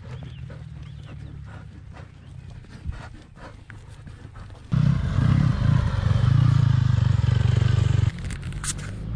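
A ridden horse moving, its hooves and tack giving irregular clicks and knocks over a low rumble. About five seconds in, a sudden loud rumbling rush of noise lasts about three seconds, then stops abruptly.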